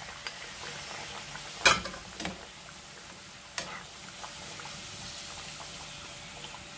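Potato slices deep-frying in hot oil, a steady sizzle, as they are scooped out with a metal slotted ladle. A few sharp clinks of the ladle against the pan and the aluminium colander, the loudest just under two seconds in.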